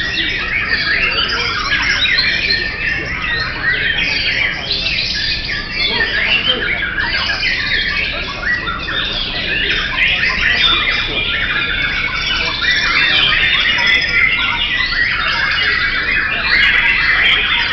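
Several caged white-rumped shamas (murai batu) singing at once: a dense, unbroken mass of overlapping whistles, warbles and sharp chattering calls.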